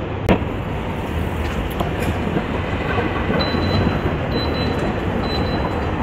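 Steady rushing outdoor city background noise, with one sharp click about a third of a second in and a faint high tone sounding three times in the second half.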